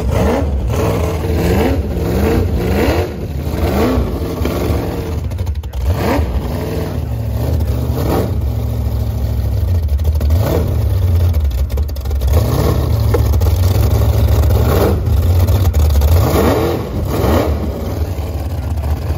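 Big-block V8 in a small jet boat running with open exhaust headers, a loud rumble that is revved up and down over and over.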